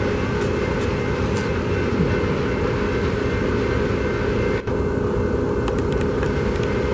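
Steady rumble of an approaching BNSF freight train's diesel locomotives, with a steady hum running through it.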